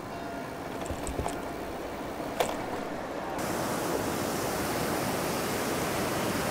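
Wind rushing over the microphone while riding an e-bike, with the steady rumble of the tyres; the rush gets louder and hissier about three and a half seconds in. A sharp click about two and a half seconds in.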